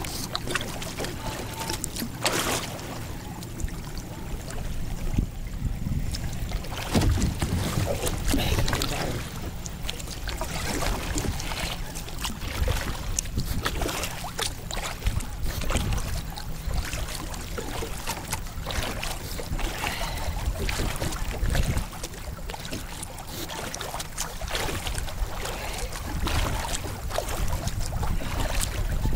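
Double-bladed kayak paddle dipping and splashing in the water stroke after stroke, with a steady low wind rumble on the microphone.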